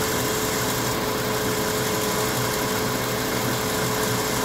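Volkswagen Jetta's engine running steadily on the lift, with a steady whine over the engine noise.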